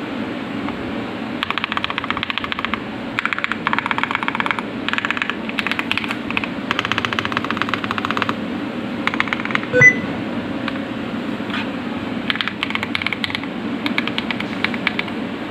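Typing on a mechanical keyboard fitted with double-shot ABS Cherry-profile keycaps: fast runs of key clacks in bursts of one to three seconds with short pauses between. About ten seconds in there is a single louder knock with a brief ringing tone.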